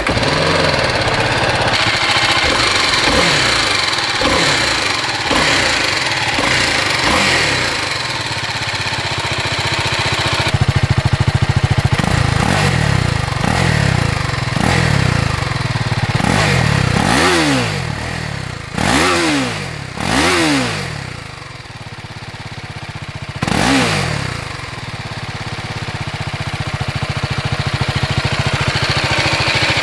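BMW G310R's 313 cc single-cylinder engine starting and idling through its stock exhaust, with a few light throttle blips in the first several seconds. About halfway through come four sharp revs, each rising and dropping straight back to idle.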